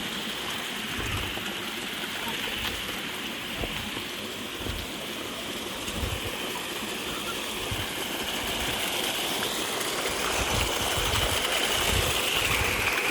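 Steady rush of flowing water, a stream or falls, with dull low thumps every second or so, growing slightly louder toward the end.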